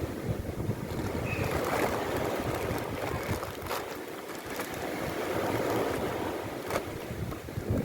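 Sea waves washing onto the shore, a continuous rushing swell with a few faint clicks.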